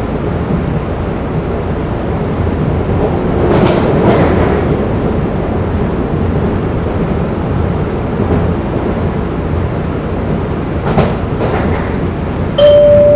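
Inside an MBTA Blue Line Type 4 subway car running between stations: a steady rumble of wheels on rail and the car's running gear, swelling brighter about four seconds in, with a few clicks from the track near the end. Just before the end, the car's electronic chime begins ahead of the next-stop announcement.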